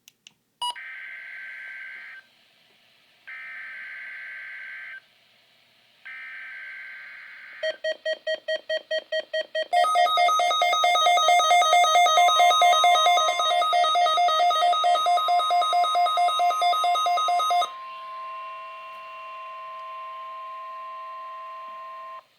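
NOAA Weather Radio Required Weekly Test signal: three separate bursts of SAME digital header tones, each about a second and a half long, then a fast pulsing alert beep that grows louder, overlapped and followed by the steady warning alarm tone, which runs about ten seconds before cutting off.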